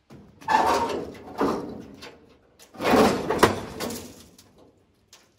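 Scraping and knocking on the rusted sheet-metal body of a wrecked Plymouth Satellite as it is handled and climbed on, in several rough bursts with two sharp knocks about three seconds in.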